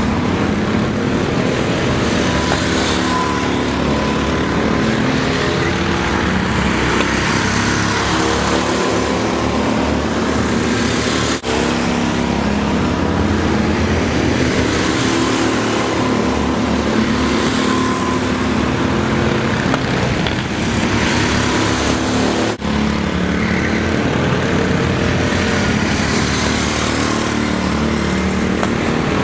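Go-kart engines running at racing speed, their pitch repeatedly rising and falling as the karts accelerate and brake around the track.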